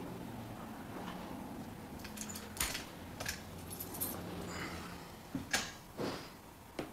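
Light clinks and knocks of small glass paint jars and drawing tools being handled and set down on a drawing table, a few separate clicks spread over several seconds.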